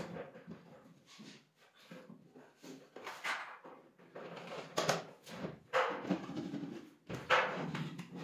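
Wooden drawer being slid in and out on metal side runners, with several short sliding rushes, some ending or starting with a knock.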